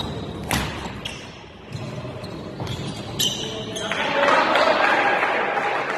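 Badminton rackets striking the shuttlecock during a rally, with a sharp smash about half a second in and a few more hits. From about four seconds in, spectators cheer and shout loudly.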